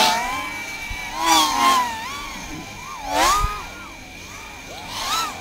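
Racing quadcopters flying past one after another, each pass a loud whine of motors and propellers that swoops up and down in pitch. There are about five passes, two of them close together a little over a second in.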